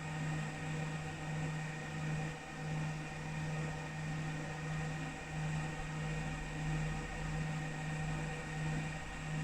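Laser back-glass removal machine running with a steady electrical hum. A low hum swells and fades gently and unevenly, with several thin steady whines above it and a faint hiss.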